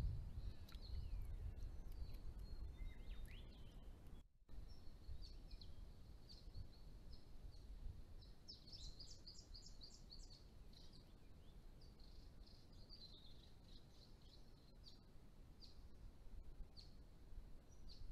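Faint high-pitched chirps from small birds, with a quick run of rapid notes about nine seconds in. A low rumble is loudest in the first few seconds, and the sound drops out briefly about four seconds in.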